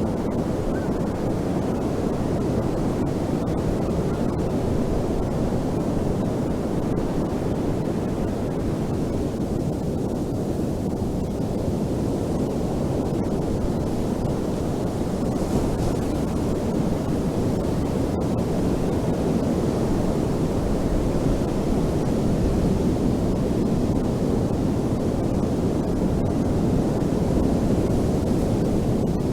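Ocean surf on a beach: a continuous deep wash of breaking waves, swelling and easing slowly, with some wind rumble on the microphone.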